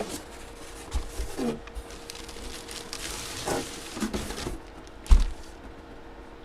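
Packaging being handled and unwrapped: rustling and rubbing, with a sharp thump about five seconds in.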